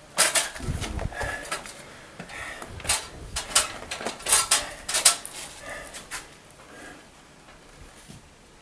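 Irregular knocks and clacks of wooden battens and boards being handled and pushed against a timber wall, about a dozen sharp knocks, the loudest with a dull thud in the first second, then scattered and sparser towards the end.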